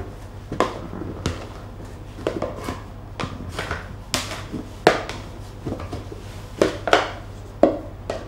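A plastic dough scraper scraping and knocking against the inside of a plastic tub as risen bread dough is worked loose and eased out: irregular knocks and scrapes, about one a second.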